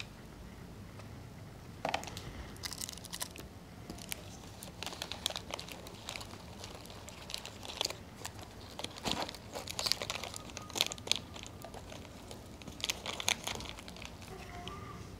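Plastic snack wrappers crinkling in irregular bursts as they are handled.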